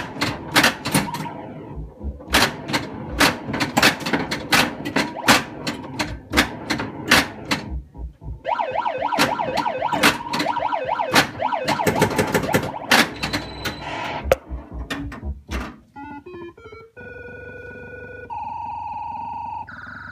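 A 1982 Bally Space Invaders pinball machine in play: a rapid clatter of sharp solenoid knocks from bumpers and flippers, mixed with the machine's electronic sound effects, including a warbling effect a few seconds in. Near the end the knocks stop and a run of steady electronic tones steps up and down in pitch.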